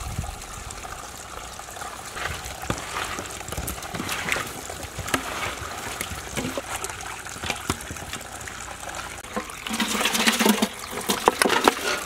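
Hands mixing salted, lemon-marinated snakehead fish pieces in a metal tray, with scattered small wet clicks and squelches. Near the end, water pours into a steel pot, a louder rushing trickle.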